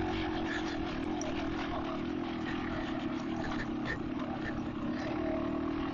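Yamaha DT200R's two-stroke single-cylinder engine running at steady revs while the bike is ridden along.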